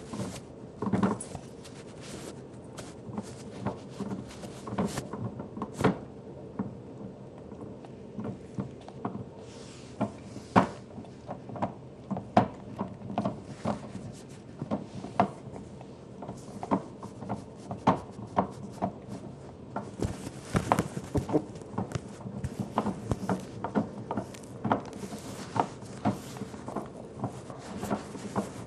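A pet gnawing on a chew bone close to the microphone: irregular clicks, knocks and scrapes of teeth on the bone, one to a few a second.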